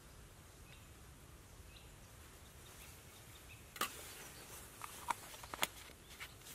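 A few faint high chirps over a quiet background, then, from about four seconds in, a handful of sharp light clicks and clinks: a metal spork knocking against a metal camping mug as it is set in, and a plastic cup being handled.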